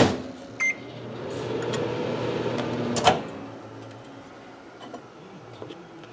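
Microwave oven: a single short keypad beep, then the oven running with a steady hum for about two seconds, ended by a sharp click as the door is opened about three seconds in.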